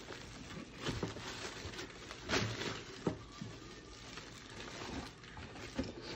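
Plastic poly mailer bag crinkling and rustling as it is handled and picked open, with a few sharper crackles standing out.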